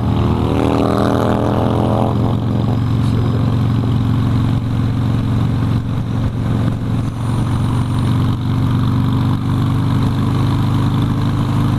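Harley-Davidson Sportster's V-twin engine running on the road, its note rising as it accelerates in the first two seconds, then settling into a steady drone.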